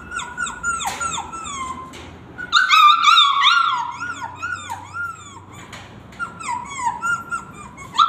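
A girl imitating a tied-up puppy crying: a string of short, high whimpers that rise and fall in pitch, loudest about three seconds in.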